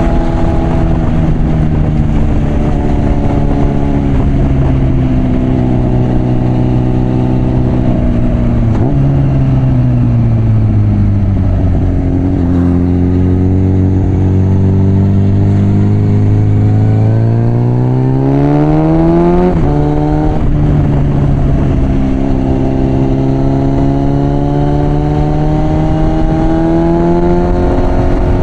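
Suzuki Bandit 650's inline-four engine through a loud aftermarket Mivv exhaust, under way with wind noise underneath. It cruises steadily, then about nine seconds in the revs blip and fall away as the bike slows. The revs climb hard and drop suddenly at an upshift a little past halfway, then settle into steady cruising, rising slightly near the end.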